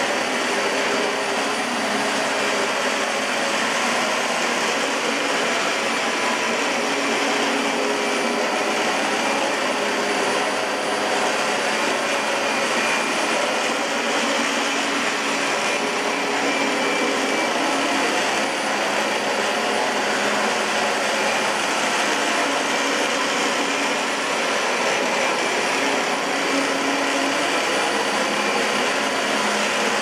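Dyson DC25 Ball upright vacuum cleaner running steadily while pushed back and forth over carpet, a constant whirring motor noise.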